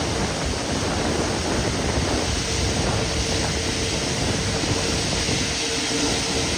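Airbus A380's four Rolls-Royce Trent 900 turbofans running at low thrust as the jet lines up on the runway: a loud, steady rushing noise, with a faint steady whine from about two seconds in.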